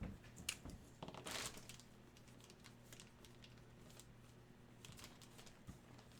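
Faint clicks and a brief crinkly rustle of trading cards and their plastic sleeves being handled, about a second in. Otherwise near silence with a low steady hum.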